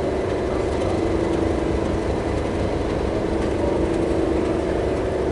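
A train's engine running with a steady, even-pitched drone.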